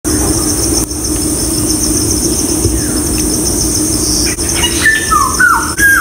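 Forest ambience: a steady insect chorus with a high, rapidly pulsing drone, and a bird calling a few short gliding notes near the end.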